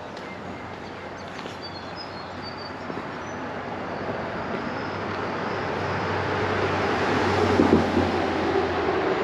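A road vehicle approaching and passing, its engine and tyre noise growing steadily louder and loudest about three-quarters of the way through. A few short, high bird chirps sound about two seconds in.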